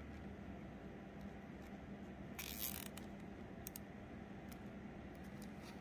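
A small plastic cable tie being pulled tight: one short zipping rasp about halfway through, then a few faint clicks of handling, over a steady low hum.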